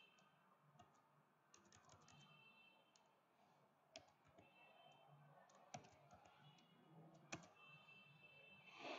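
Faint computer keyboard typing: scattered key clicks in small groups over a low hum, with a short breath just before the end.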